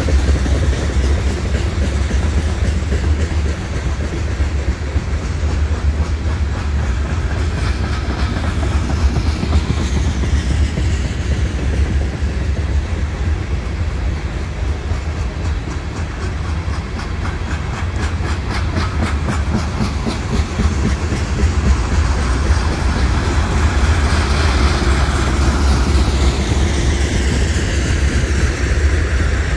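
Loaded steel coal hopper cars of a freight train rolling past: a steady rumble of wheels on the rails, with a rhythmic clickety-clack of wheels over the rail joints.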